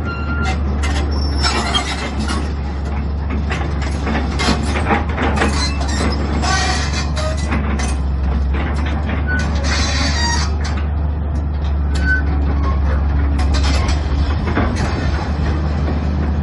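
Caterpillar 320BL excavator's six-cylinder diesel engine running steadily under hydraulic load as the boom and bucket are worked, with scattered clanks and short high squeaks from the moving linkage.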